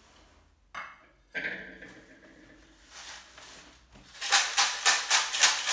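A plastic bottle shaken in quick strokes, about four a second, near the end. Before that, two brief knocks as the bag and a plastic disc are handled.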